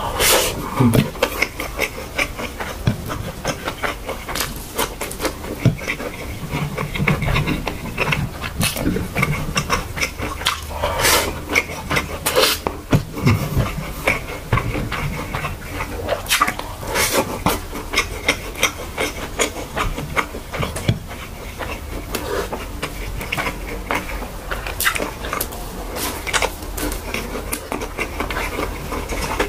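Close-miked eating sounds of fried rice eaten by hand: chewing, lip smacks and wet mouth clicks, with louder smacks every second or two over a steady low hum.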